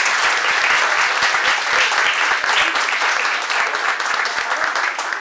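Audience applauding after a speech, a dense patter of many hands clapping at once, cutting off at the end.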